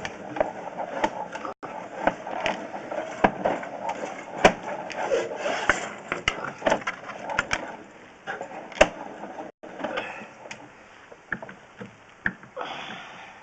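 Irregular sharp knocks, taps and clatter, with some murmured talk under them, and a short rushing noise near the end.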